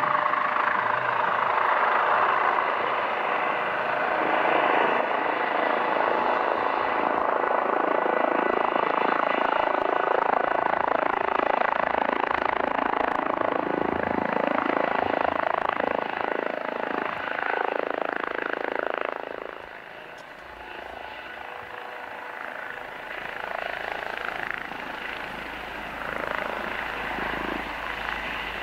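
Eurocopter EC135 helicopter hovering low over snow, its main rotor and twin turbine engines running loud and steady. About two-thirds of the way in the sound drops sharply and runs on quieter; by the end the helicopter sits on the snow with its rotor still turning.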